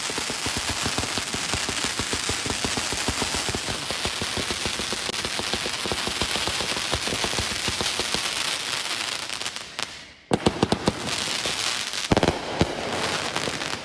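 Firecrackers going off in a dense, rapid crackle. The crackle drops away about ten seconds in and gives way to two short clusters of louder sharp bangs.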